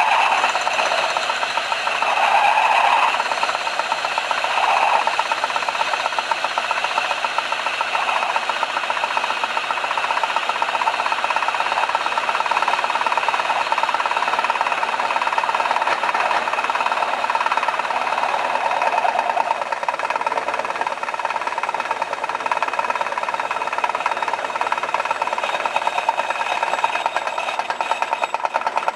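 Craftsman 109 bench lathe running with a steady, rapid rattle while a high-speed steel bit faces off a rough workpiece held in a three-jaw chuck. It is louder in a few swells over the first five seconds.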